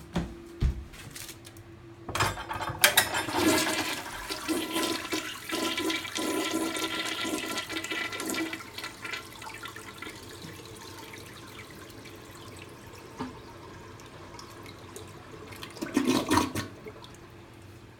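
Toilet flushing: a few clicks, then water rushing and swirling down the bowl for several seconds, trailing off into a quieter steady hiss, with a short loud burst near the end.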